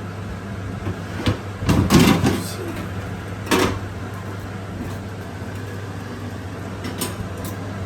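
Kitchen handling sounds: a few sharp knocks and clunks, the loudest cluster about two seconds in, over a steady low hum.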